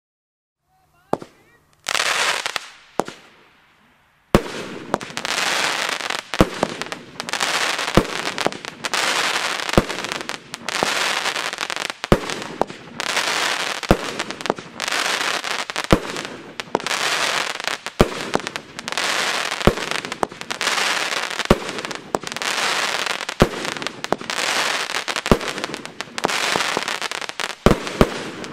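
Pyromould Black Wolf 16-shot firework battery firing. After a few uneven shots, a sharp report comes about every two seconds, each followed by a crackling burst.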